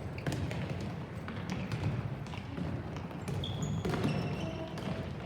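Youth soccer match ambience: a steady murmur of distant voices, with scattered sharp knocks and thuds and a few short high-pitched chirps.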